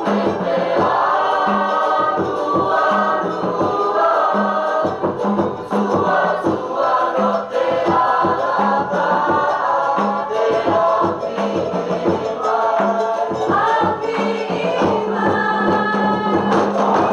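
Cook Islands group singing in chorus over a steady beat of drums and other percussion, keeping time for the dancers.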